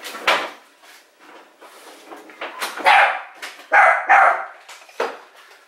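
A pet dog barking: a handful of short barks, with three loud ones close together in the middle.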